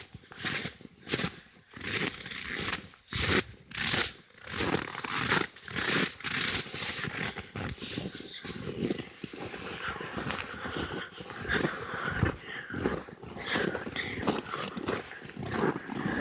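Footsteps crunching through deep snow at a walking pace, one distinct step every half second or so, running together into a denser shuffling crunch about halfway through.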